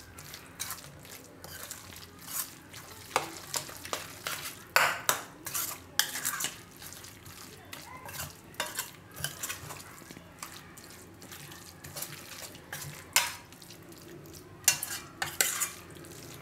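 A steel spoon stirring and mashing a wet eggplant mixture in a stainless steel bowl, with irregular scrapes and clinks of the spoon against the bowl.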